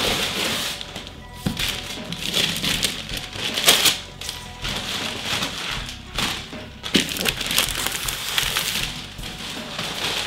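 Gift-wrapping paper torn off a cardboard box in a series of quick, irregular rips and crumpled, over background music.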